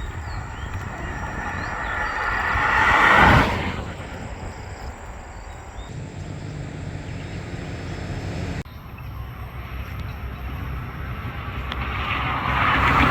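A motor vehicle passes on the road, growing louder to a peak about three seconds in and then falling away, over steady wind rumble on the microphone; another vehicle approaches near the end.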